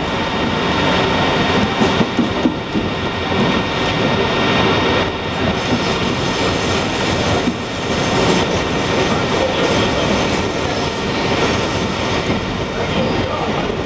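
New York City Subway 7 train running at speed on elevated track, heard from inside the car: a steady rolling noise of steel wheels on rail with occasional clacks and a steady high-pitched whine.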